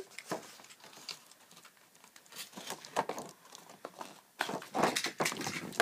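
Toy train packaging being handled and opened by hand: scattered clicks and short rustles, busiest in the last second and a half.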